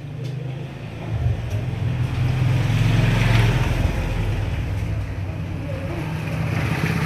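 A motor vehicle passing by: engine and road noise swell to a peak about three seconds in, then ease off, with more traffic building again near the end.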